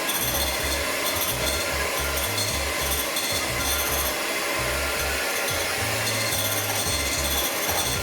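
Electric hand mixer running steadily, its beaters whirring through cupcake batter of eggs, sugar, butter and oil.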